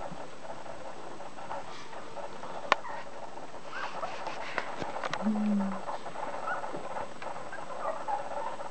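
Two-week-old whippet puppies squeaking faintly and shuffling as they crawl and nurse, with a few small clicks and a short low sound about five seconds in.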